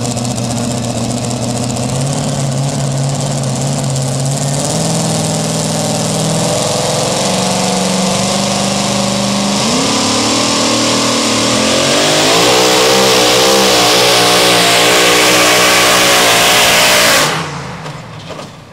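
Supercharged engine of a super modified two-wheel-drive pulling truck, running under heavy throttle. Its pitch climbs in steps for about ten seconds, then it gets louder with a wavering pitch as it pulls the sled. It cuts off abruptly near the end.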